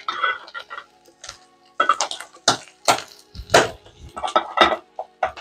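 Kitchen clatter as spice containers are handled and set down around a pan: irregular sharp clicks and knocks, under faint background music.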